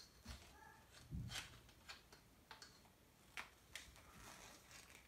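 Faint, scattered clicks and taps of plastic RC truck parts being handled while screws are worked loose with a hand screwdriver, with one short squeak a little under a second in.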